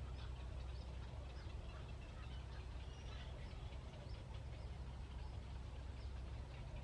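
A flock of birds calling, with many short calls overlapping throughout, over a steady low rumble.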